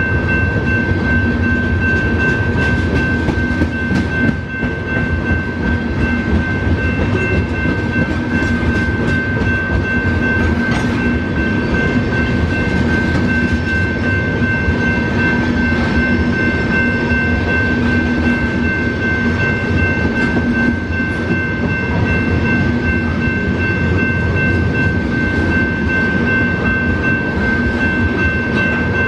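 Freight train tank cars rolling steadily past over a grade crossing: a continuous rumble and clatter of steel wheels on the rails. A crossing bell rings steadily over it.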